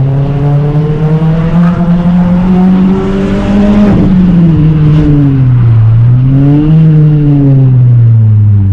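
Renault Clio RS 197's naturally aspirated 2.0-litre four-cylinder engine under load. It pulls up through the revs for about four seconds, then drops off, gives a short rise and falls back again, as on a spirited drive through bends.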